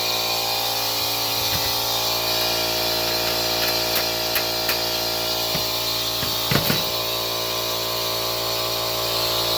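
Electric air compressor running with a steady hum. A few light clicks come about four seconds in, and a small knock follows a couple of seconds later, from the tank's gauge fitting being handled.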